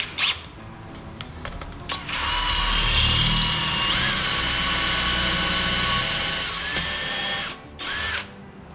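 Cordless drill spinning a small collared drill bit through a fixture's drill bushing, cutting a shallow starter divot into an aluminum Porsche engine block for the oil squirter hole. The drill starts about two seconds in and runs with a whine that steps up in pitch partway through, then a shorter, lower run and a brief final burst near the end.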